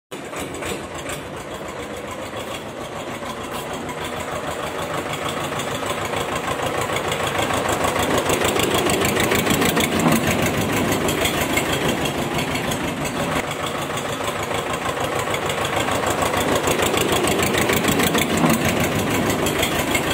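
Diesel tractor engine running with a fast, even knocking beat, growing gradually louder.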